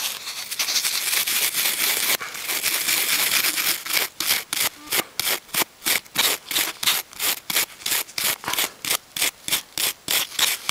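Brisk back-and-forth scrubbing of old radio control knobs with polish, close up: a continuous scratchy rubbing at first, then from about four seconds in regular quick strokes, about three or four a second.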